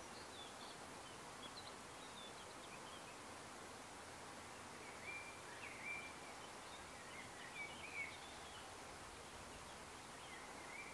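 Faint outdoor ambience of small birds singing: scattered short high chirps and warbles, a few louder ones about midway, over a soft steady hiss.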